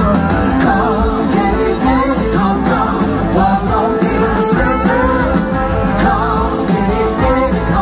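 A large live rock band playing, heard from the audience, with a lead melody gliding and bending up and down above the full band.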